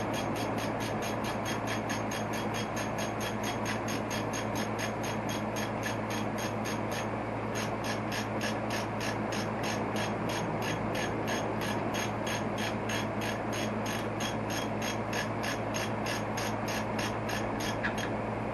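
Steady, rapid ratchet clicking, about five clicks a second, over a low steady hum; the clicking stops shortly before the end.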